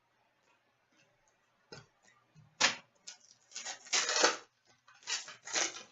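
A trading card pack being opened and its cards handled: a run of crinkling, rustling and clicking, the loudest rustles about two and a half and four seconds in, after a near-silent start.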